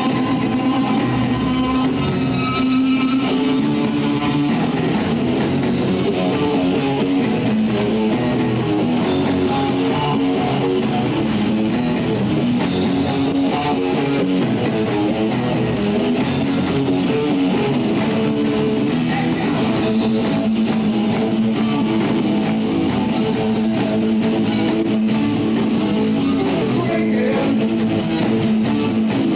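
Live rock band playing, with electric guitar to the fore over bass guitar.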